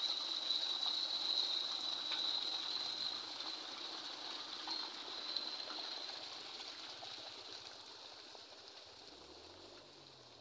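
Water running in an irrigation channel: a steady rushing with a steady high-pitched whine above it, fading gradually away.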